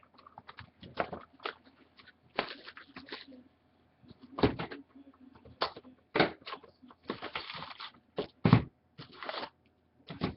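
Trading cards and foil card-pack wrappers being handled: irregular sharp taps and clicks with short bursts of crinkling.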